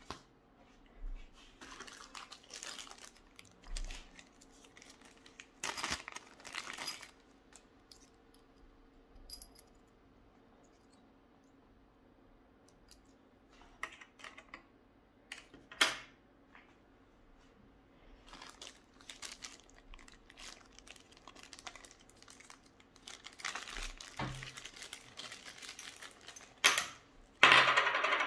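Poker set pieces being handled in an open aluminium case: scattered clicks and light rattles of dice and chip-like buttons, with small plastic bags rustling, and a loud burst of plastic crinkling near the end.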